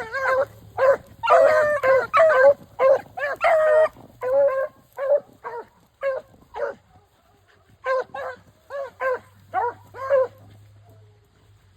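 Beagles baying as they run a rabbit's scent trail: many short calls, dense and overlapping at first, then thinning out and stopping about ten and a half seconds in.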